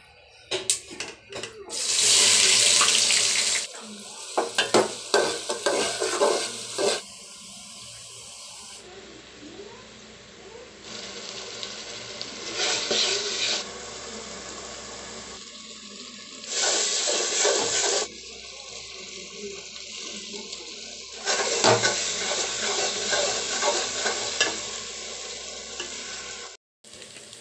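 Curry masala sizzling and frying in hot oil in a metal pot, with a spoon stirring and scraping against the pot. The sizzle comes in several separate spells, the loudest a couple of seconds in, with a run of sharp spoon clicks just after it.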